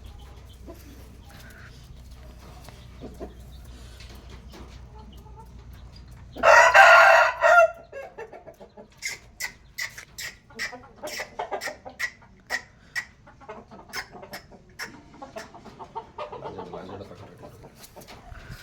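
A bird gives one loud call lasting about a second and a half, then a run of quick, sharp clicks.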